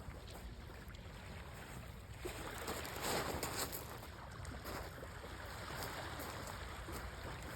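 Waves and wind on an open beach: a steady wash of noise that swells for a couple of seconds about three seconds in.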